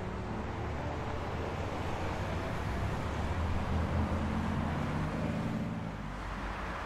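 Road traffic noise with a low rumble from a vehicle passing, loudest about four seconds in, then easing off.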